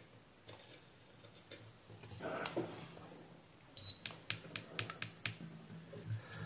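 A digital multimeter beeps once, briefly, almost four seconds in as it is switched on. A string of light clicks and taps follows as the test probes are handled and set on the circuit board.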